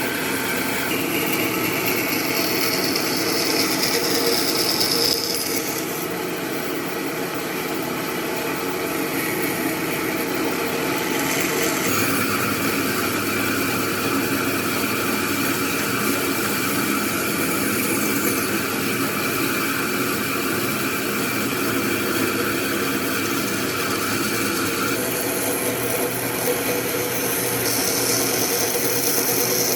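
A power tool running steadily against wood, grinding it away, with its sound changing character about six, twelve and twenty-five seconds in.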